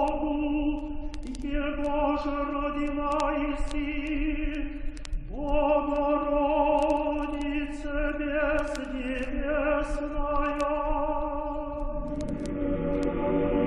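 Orthodox choral chant: voices singing slowly with long held notes. Near the end a fuller chord comes in, with lower voices added.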